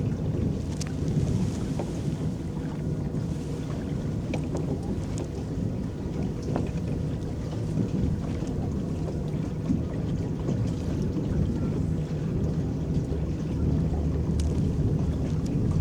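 Electric boat moving across a lake: a steady low rumble of the boat with its paddles churning the water, scattered small splashes, and a faint steady hum.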